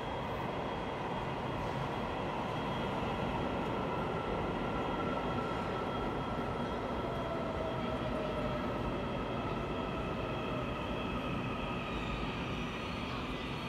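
Taiwan Railways electric commuter train pulling into the platform and slowing to a stop, with a steady rumble of wheels on rails. Faint motor whines sink in pitch as it slows.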